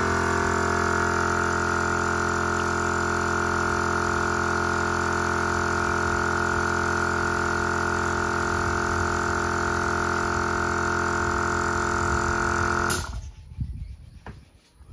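Small piston air compressor running steadily under the hiss of a spray gun in use, then cutting off abruptly about thirteen seconds in.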